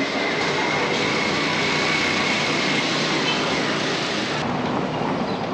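Vintage yellow Lisbon tram running past over its rails on a cobbled street, a steady rolling rumble with a thin high whine over it for the first few seconds.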